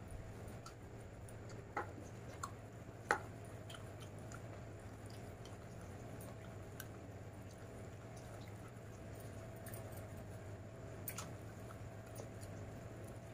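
Person eating rice and chicken curry by hand from a steel plate: chewing and soft squishing of food as fingers mix it, with scattered sharp clicks, the loudest about three seconds in, over a steady low hum.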